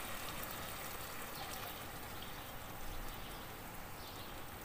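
Water poured in a steady stream into a pan of zucchini and tomato stew, stopping before the end.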